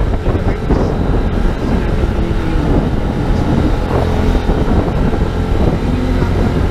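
Motorcycle engine running steadily as it is ridden, with wind noise on the microphone.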